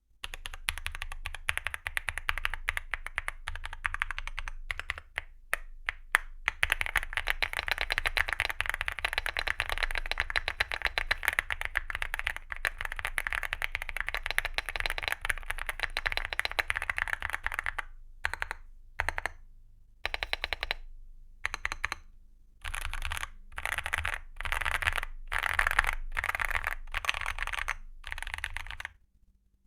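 Typing on a Leobog Hi75 mechanical keyboard with Akko V3 Creamy Purple Pro short-travel tactile switches and XDA-profile PBT keycaps. A fast, continuous run of keystrokes gives way in the last third to short bursts of keystrokes separated by brief pauses.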